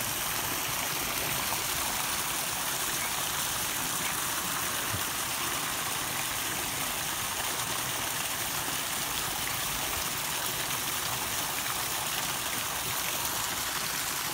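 Running water, a steady even rush.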